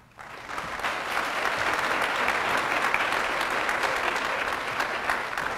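Audience applauding, building up within the first second and tapering off near the end.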